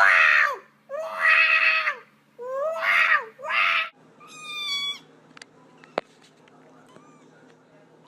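A cat yowling loudly four times in quick succession, harsh drawn-out cries. About four seconds in comes a clearer, higher meow that falls in pitch, then a couple of sharp clicks.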